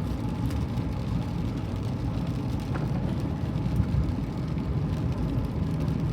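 Steady road and engine noise heard from inside the cabin of a moving car on a rain-wet road: an even low rumble.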